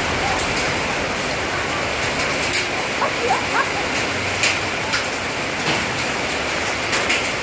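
Heavy rain and muddy floodwater rushing down a street: a steady wash of noise with a few sharp ticks.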